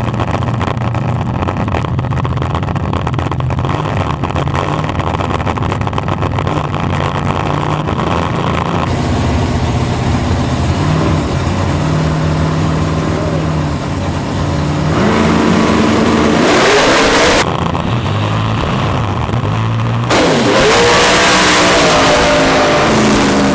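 Street drag-race cars idling at the line, then launching hard about fifteen seconds in: engines at full throttle climbing in pitch, dropping briefly at a gear change, then climbing loudly again.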